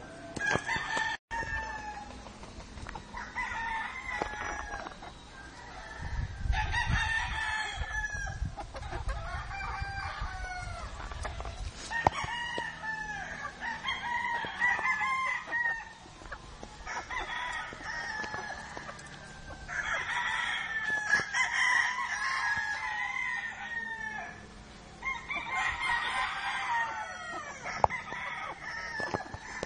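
Chickens clucking and crowing, many pitched calls following one another, some overlapping.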